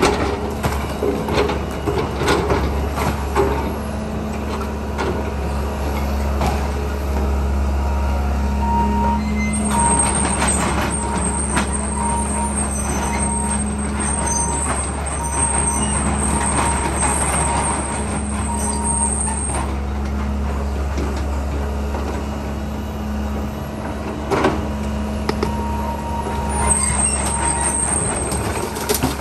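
Tracked hydraulic excavator demolishing a building: its diesel engine running steadily under load while the bucket tears at the walls and debris crashes and clatters down. A beeping alarm sounds for several seconds in the middle and again briefly near the end.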